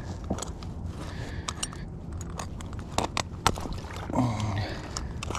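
Scattered metallic clicks and scrapes as gloved hands work an old Victor stop-loss trap holding a muskrat in shallow water among cattails, with the sharpest clicks about three seconds in.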